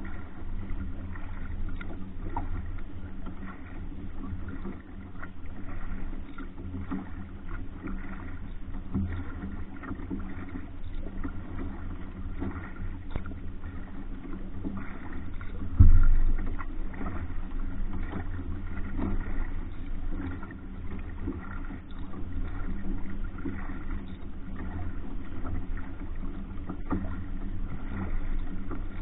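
Canoe paddling on flat water: paddle strokes and drips from a Hornbeck New Trick solo pack canoe, over a steady low rumble, with one louder thump about halfway through.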